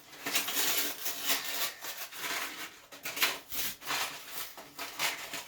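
Handling noise from toilet flapper parts being picked up and handled: irregular rustling with light clicks and taps.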